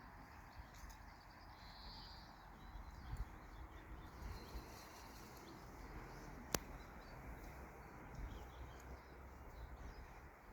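Faint outdoor ambience: a steady low rumble of wind and background noise, with faint bird chirps and one sharp click about six and a half seconds in.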